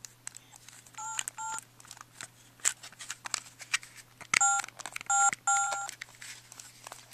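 Phone keypad being dialed: short two-tone key beeps, a pair about a second in and a quicker run of three or four a few seconds later, with taps and clicks of handling between them.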